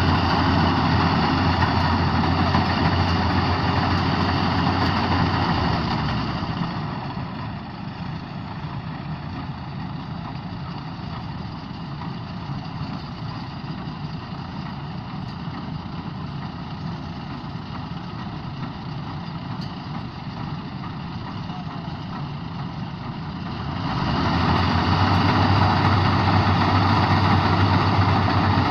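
K-BOS 880 combine harvester running steadily at work. It grows quieter about six seconds in and swells back to full loudness near the end.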